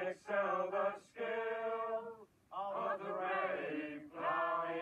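A man singing an English folk song unaccompanied, in slow, long held notes, with a short breath break about two seconds in.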